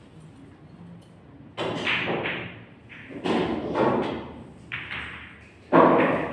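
Pool shot on a Brunswick table: four sharp knocks, each with a short rattling tail, from the cue striking the ball and balls hitting each other and the cushions. The loudest knock comes near the end.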